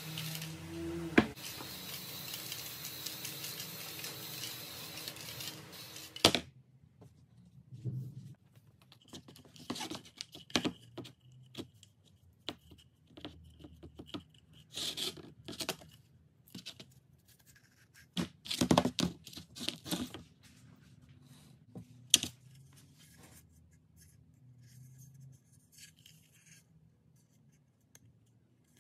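Aerosol spray can hissing steadily as it coats a wooden scoop, cutting off abruptly after about six seconds. Then scattered rustling, scraping and light knocks as a leather cord is tied through the scoop's handle and the wooden scoop is handled on a work table.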